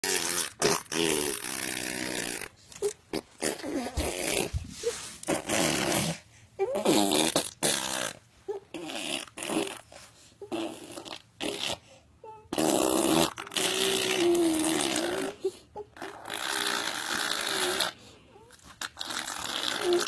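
A baby making fart-like spluttering noises over and over, in bursts of one to two seconds with short breaks. Some of the bursts carry a wobbling pitch.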